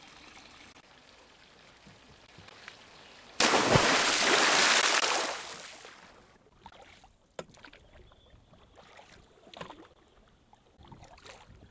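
Canoe paddle working through lake water: a sudden loud rush of splashing water about three seconds in that lasts about two seconds and fades, then quieter small splashes, drips and light knocks of the paddle.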